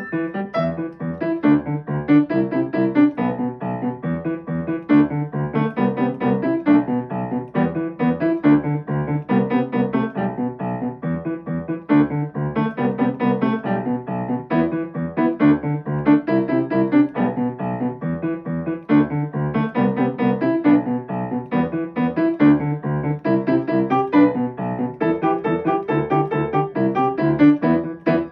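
Solo piano playing a pop song arrangement, steady bass notes and chords under a melody.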